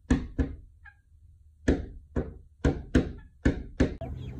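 A guinea fowl pecking at a door: about eight sharp knocks, mostly in quick pairs. The owner takes the knocking as a sign the birds are hungry and want to be fed.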